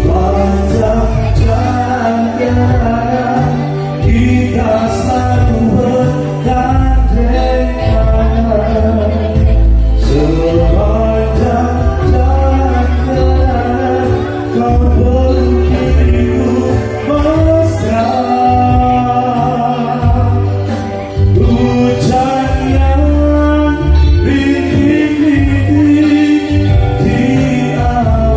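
Live band playing through a PA system: a man singing into a microphone over keyboard and electric guitar, with a heavy bass.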